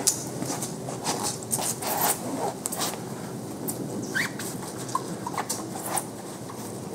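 Cloth towel wiping a car's trunk jamb and rubber weatherstrip: scattered rubbing, rustling and light clicks, with a brief squeak about four seconds in and two smaller squeaks a second later.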